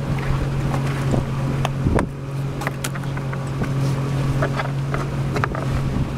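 Boat engine running with a steady low hum, with scattered light clicks and knocks on top, the clearest about two seconds in.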